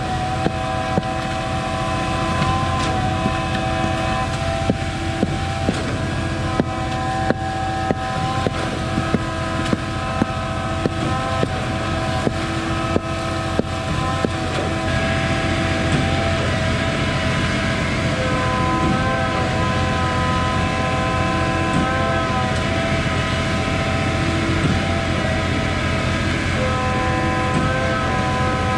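Concrete boom pump truck's diesel engine running steadily, a constant drone with several held tones. Sharp knocks come about once or twice a second through roughly the first half, then stop.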